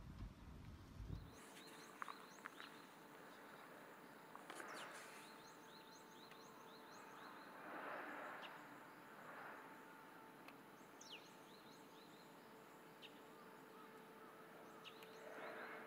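Faint outdoor ambience: scattered short high bird chirps over a faint steady hum, with a few soft rustling swells. A low rumble cuts off about a second in.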